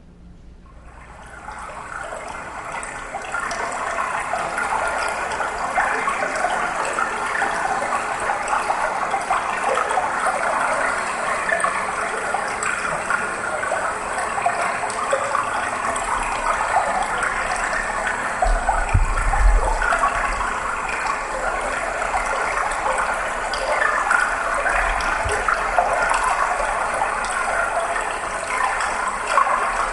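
Steady rushing water, a recorded sound on the dance piece's soundtrack, fading in over the first few seconds and then holding. There is a brief low thud about two-thirds of the way through.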